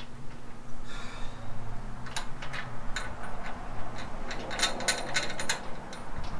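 Metal clicks and taps of a hand wrench working a bolt on a steel engine cradle, with a quick run of clicks about four and a half seconds in.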